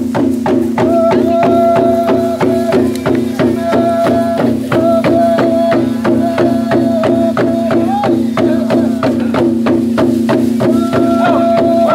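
Music: a steady low drone under a fast, even beat of sharp clicking percussion, with a higher melody line held in long notes.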